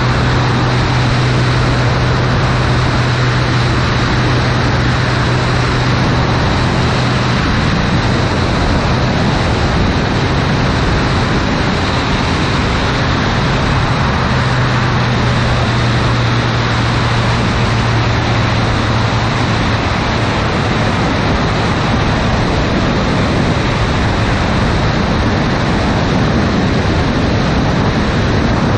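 Piston engine and propeller of a single-engine aerobatic plane droning in flight, under heavy wind noise on the microphone. The steady low engine hum weakens about twenty seconds in.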